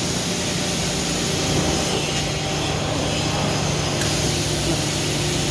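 Steady industrial machinery noise with a low steady hum, from a CNC steel-beam drilling line running in the workshop.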